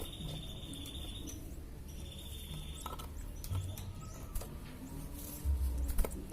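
Canary cage sounds: several sharp clicks and taps, the loudest near the end, with a thin, high steady peep heard twice in the first three seconds over a low background rumble.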